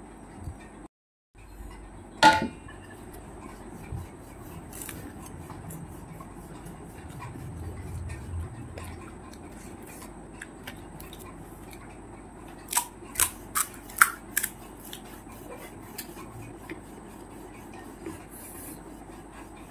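Crisp fried puri shells cracking. There is one sharp crack about two seconds in and a quick run of five or six crunches a little past halfway, over soft handling of the food.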